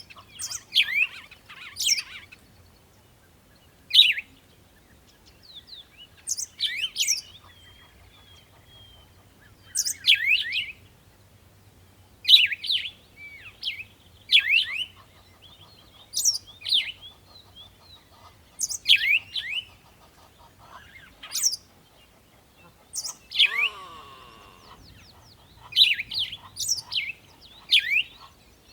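Songbirds singing in short, loud phrases of quick, high, falling notes, one phrase about every two seconds. A lower, falling call comes in about two-thirds of the way through.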